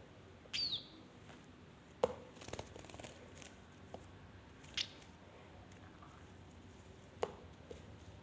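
A young bird giving two short high chirps, the first a quick downward-sliding peep about half a second in, the second near the middle, between a few sharp clicks and taps.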